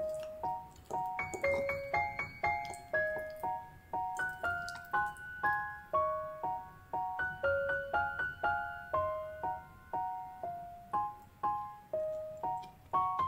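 Background music: a gentle keyboard melody of short, quickly fading notes, about two a second.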